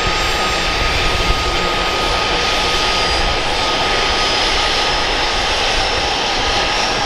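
Boeing CH-47F Chinook's twin turboshaft engines running with both rotors turning on the ground: a loud, steady turbine roar with a constant high whine.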